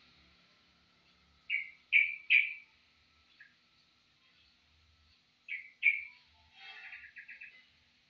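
Yellow-vented bulbul (trucukan) calling: three short, loud chirps about a second and a half in, a faint one after, a pair more around five and a half seconds, then a quick chattering trill near the end.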